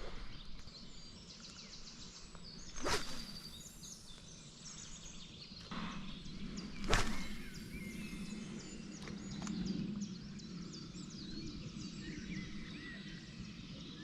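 Songbirds singing and calling, with two sharp clicks about three and seven seconds in, the second the loudest. A low steady hum comes in about halfway.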